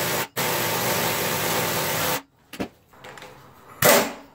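A handheld power tool turning the forcing bolts of a crank pulley puller: a short burst, then a steady run of about two seconds. Near the end comes another short burst whose whine falls in pitch as the tool spins down.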